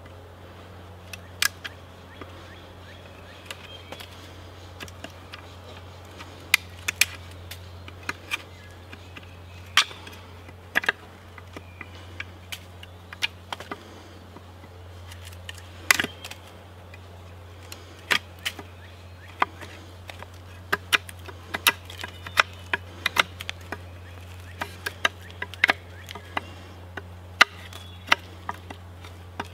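A fixed-blade knife cutting a notch into a sapling pole, with irregular sharp knocks and cracks as the blade bites into the wood. The cuts come roughly once a second, and more often in the second half, over a steady low hum.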